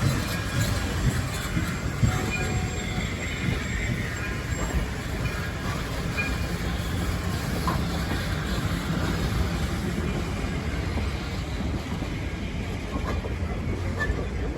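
Train rolling along the track: a steady rumble of steel wheels on rail, with a few brief faint wheel squeals.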